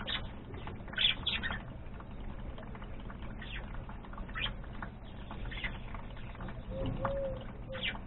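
Budgerigars giving short, high chirps every second or so, over a low steady hum.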